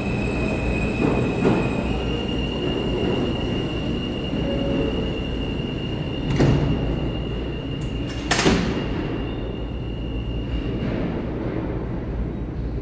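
R160 subway train standing at the platform: a steady low hum with a constant high whine from the car's equipment. Two short, loud hisses about six and eight seconds in, the second the louder.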